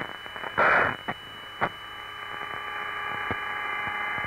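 Open Apollo-era air-to-ground radio channel between transmissions: steady hiss and hum with faint steady tones, a short loud burst of static about half a second in and a few sharp clicks, the hiss slowly growing louder.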